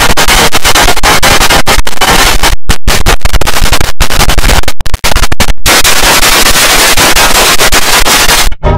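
Heavily distorted, clipped audio from several effect-processed versions of a logo jingle layered at once, heard as a loud harsh noise with no clear tune. It cuts out abruptly for an instant several times, around the middle and again near the end.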